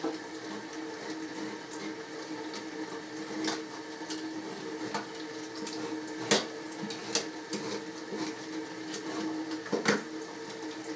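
Kitchen tap running steadily into a sink, under a steady low hum, while a Y-shaped vegetable peeler scrapes the skin off a potato held on a wooden board. A few sharp clicks and knocks come from the peeler and the potato on the board, the loudest about six seconds in and again near the end.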